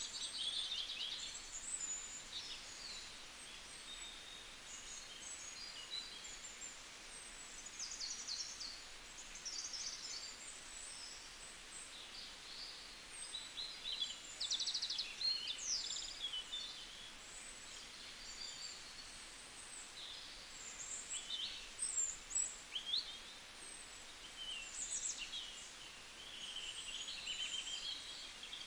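Birds chirping, with many short, high-pitched calls and a few quick trills scattered throughout, over a steady background hiss.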